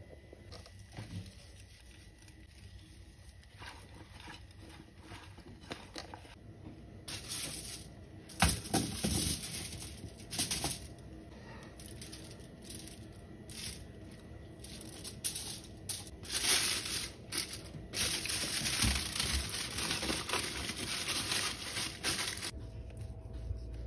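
Aluminium foil crinkling and crackling in repeated bursts as hands fold and press it closed around a raw turkey roll, the loudest bursts coming in the second half.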